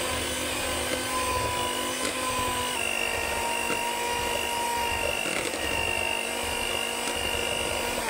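Electric hand mixer running steadily with a high motor whine, its wire beaters whipping thick buttercream in a plastic bowl. The whine shifts slightly in pitch about three seconds in.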